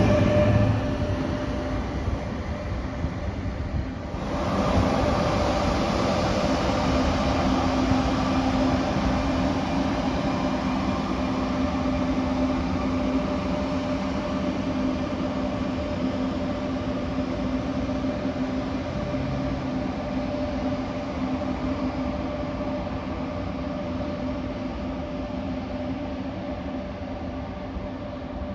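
Frecciarossa ETR500 high-speed electric train pulling away from the platform. Its steady electric drive hum and running noise fade slowly as it recedes. There is a brief break about four seconds in.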